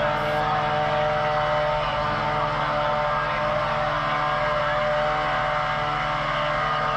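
A vehicle engine running steadily: an unbroken drone that holds the same pitch throughout.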